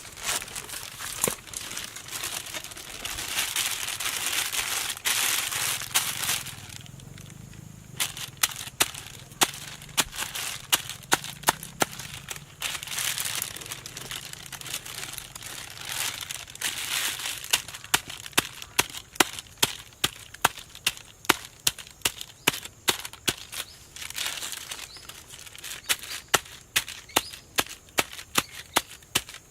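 Ingredients being crushed by pounding: sharp knocks, coming about one or two a second from about eight seconds in, between stretches of a hiss.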